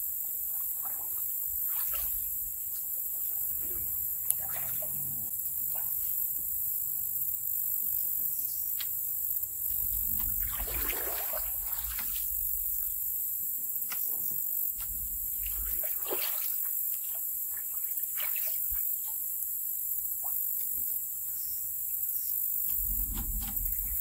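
Canoe paddle strokes in the water, with splashing and dripping as the canoe is turned around, and now and then a light knock.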